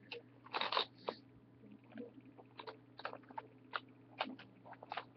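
Rummaging through a makeup bag: a string of irregular clicks and clatters of makeup containers knocking together, the densest just under a second in, over a steady low hum.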